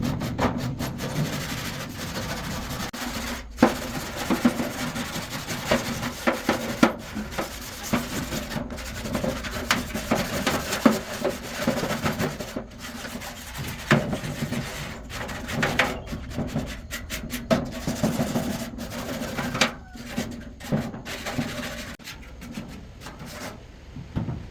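Hand-tool work on a workshop piece: irregular scraping and rubbing strokes, like filing, with sharp knocks among them. The sound is chopped by many brief gaps.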